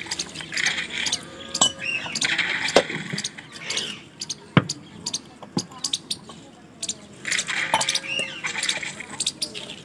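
Stainless-steel kitchen utensils clinking and tapping in irregular knocks as a tumbler, bowls and a plate are handled, with birds chirping in the background.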